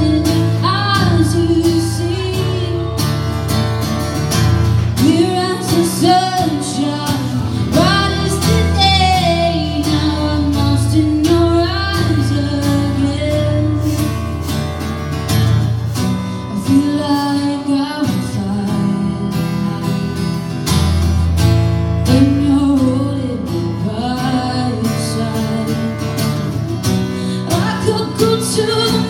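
A woman singing lead over two strummed acoustic guitars, played live.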